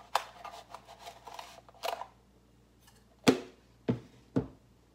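A metal spoon scooping sugar out of a plastic container with light scrapes and clicks, then a few sharp clinks of the spoon against an aluminium saucepan as the sugar is tipped in, the loudest about three seconds in.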